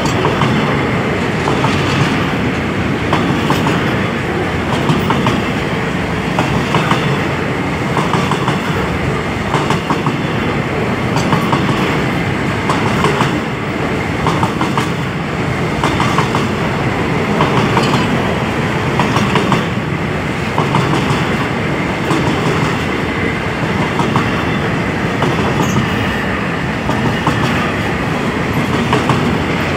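Freight train of covered hopper wagons rolling past close by: a steady rumble of wheels on rail, with a regular clickety-clack about once a second as the wheelsets cross rail joints.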